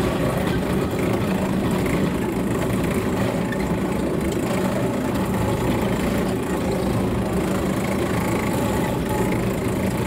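Engine of a steep-grade rack-rail monorail car running steadily while under way, heard at double playback speed.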